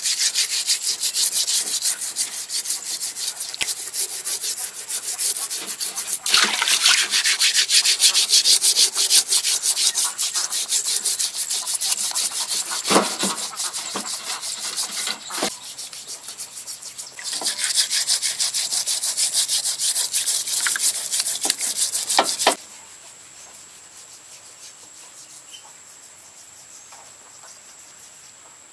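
Steel wool scrubber rubbed hard and fast over the singed, charred skin of buffalo legs in a basin of water, a rapid rasping scrape of many quick strokes, scouring off the burnt hair and char. The scrubbing pauses briefly a few times and stops about three-quarters of the way through, leaving only a faint steady high tone.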